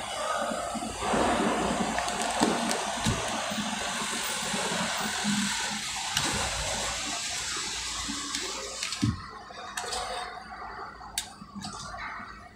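Steady rushing noise with a low hum from vehicles running on a ferry's enclosed car deck. It eases about nine seconds in, leaving scattered clicks.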